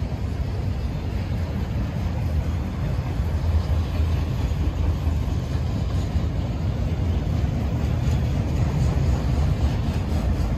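Autorack freight cars rolling past on the rails: a steady, heavy rumble of steel wheels and car bodies.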